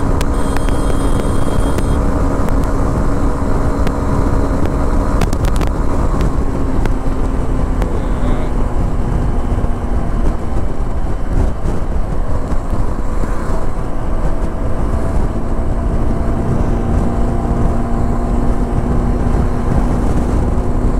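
Motorcycle running flat out at highway speed, around 110–120 km/h: a steady engine note under heavy wind rush on the microphone.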